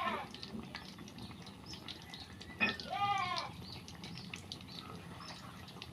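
Goat bleating: one wavering call trails off right at the start and another, the loudest sound, comes about three seconds in, each a half-second arching cry. Faint scattered clicks and a low hiss run underneath.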